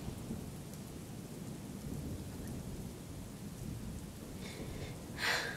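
Rain and thunderstorm ambience: a steady low rumble of rain and distant thunder, with a brief louder rush of noise near the end.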